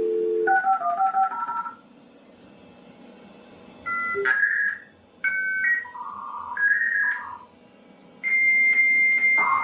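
Dial-up modem connecting: a brief dial tone, quick touch-tone dialing, a hissy pause, then several short two-tone beeps. About eight seconds in a steady high answer tone begins the modem handshake.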